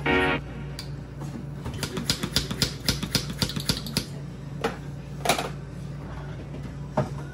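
Ice rattling in a cocktail shaker being shaken hard: a fast run of clicks, about seven a second, for about two seconds. A few separate knocks follow, the loudest about five seconds in.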